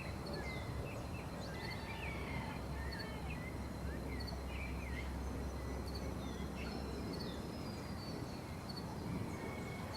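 Outdoor ambience: many short, high chirping calls from small animals scattered throughout, over a steady low rumble.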